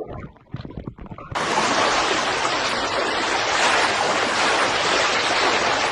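Steady rush of sea surf, cutting in suddenly about a second in after a few faint knocks.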